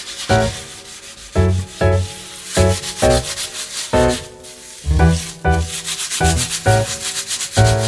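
Rapid back-and-forth scrubbing of a kitchen surface, many quick strokes a second, over background music with regular notes.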